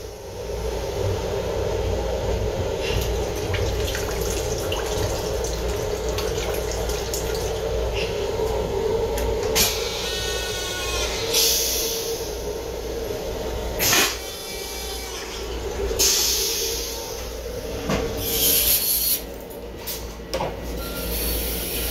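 M7 railcar toilet flushing: two loud rushes of water with a rapid pulsing near the middle, over the steady rumble and hum of the train running.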